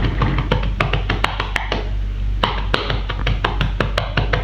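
Hands tapping rhythmically on a person's back in chest physiotherapy percussion, a quick even run of several taps a second, done to loosen retained phlegm so it can be coughed up.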